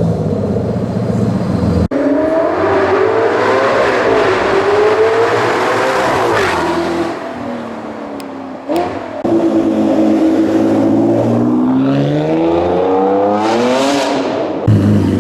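Supercar engines accelerating hard, the engine note climbing and then dropping back at gear changes, several times over in short clips cut together. Near the end a rushing sound swells and fades as a car goes by.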